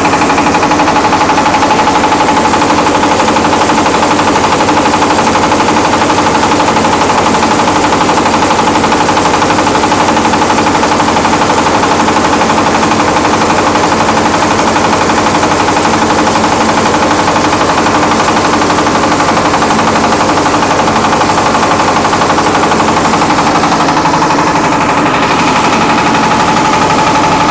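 MAKTANI MT212 rice milling machine running under load, milling paddy into rice: a loud, steady, fast rattle with a constant whine.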